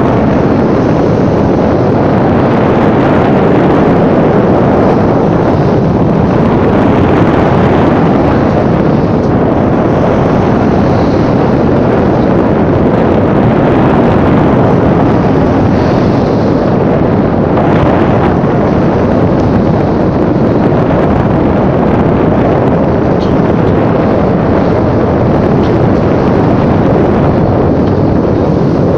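Fishing boat under way: its engine running steadily under loud wind on the microphone and water rushing past the hull.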